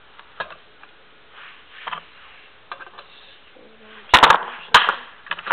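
Hard objects clattering as parts are rummaged through in search of a coupling: a few light clicks and clinks, then a loud clatter of several sharp knocks about four seconds in and another a little later.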